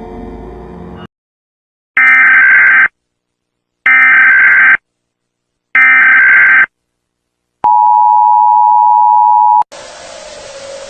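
Music cuts off about a second in, then an Emergency Alert System alarm plays: three bursts of about a second each of the SAME digital header tones, a second apart, followed by the steady two-tone attention signal for about two seconds. A hiss follows near the end.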